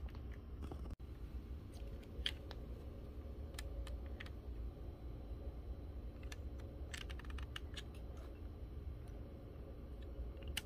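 Light plastic clicks of a Lego-brick Glock 18c model being handled as its fire-selector switch is flicked between settings, scattered single clicks with a quick run of them about seven seconds in.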